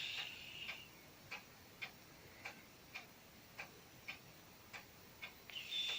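Sleeping cat's high, thin whistle through the nose as it breathes, fading out under a second in and starting again near the end. Under it, a steady ticking at about two ticks a second.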